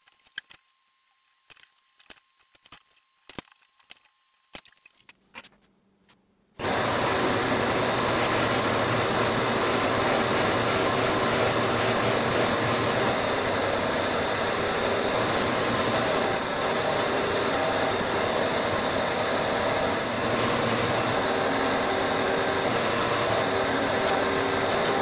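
Drill press and dust-collection vacuum running while bowling balls are drilled: a loud, steady noise that switches on about six and a half seconds in and cuts off just before the end. Before it, a few light clicks and taps of handling.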